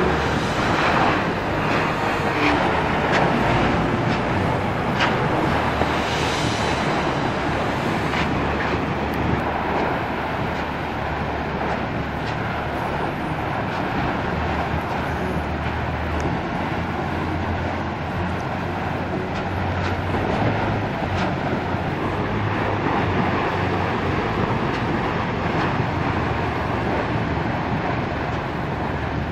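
Piton de la Fournaise's lava fountain jetting from the vent of a spatter cone: a loud, steady roar, with a few sharp cracks in the first several seconds.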